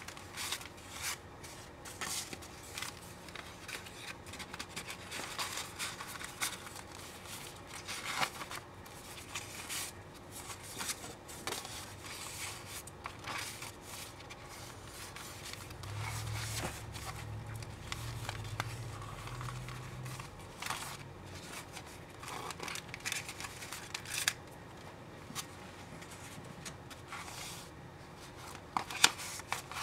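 Paper rustling and sliding as journal pages of old book paper and cardstock are turned and tags and cards are pulled from paper pockets and handled. The sound comes as irregular soft brushes, scrapes and light taps, with a few sharper taps near the end.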